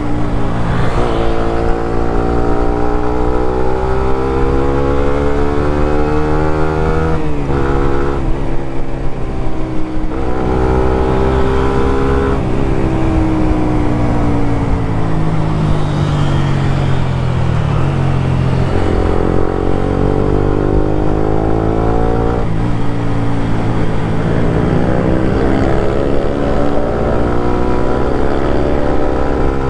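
Suzuki GSX-R150's single-cylinder engine through a Prospeed Black CNC aftermarket exhaust, under way: revs climb and drop sharply at each upshift, three times in the first dozen seconds. The revs then fall away slowly as it slows, climb again with another shift, and build once more near the end.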